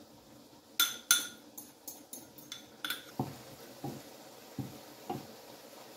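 A metal spoon clinking sharply against a ceramic bowl several times as the last of the beaten egg is scraped out. From about three seconds in, a spatula knocking and scraping in a nonstick frying pan, a dull knock every half second or so, breaking up scrambled egg.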